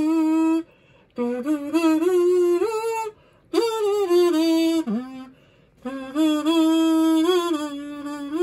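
Tin kazoo played by a young child: a run of buzzy held notes broken by short pauses, the pitch wobbling and stepping up and down.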